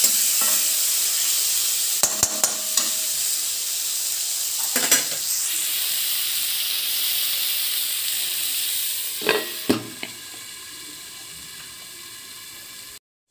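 Chopped tomatoes sizzling in hot oil with onion and spice masala in a steel kadhai, with a metal spatula scraping and clinking against the pan a few times. About ten seconds in, a glass lid goes on with a clink, and the sizzle carries on quieter and muffled under it.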